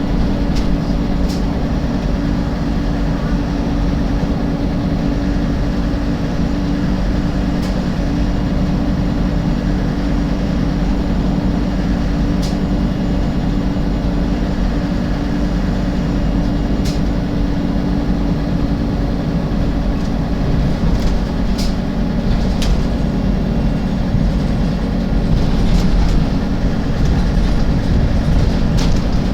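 Alexander Dennis Enviro 300 MAN single-decker bus running with a steady low engine drone, and sharp clicks every few seconds that come closer together in the second half. The clicks are the fault noise the bus is known for; their cause is not given.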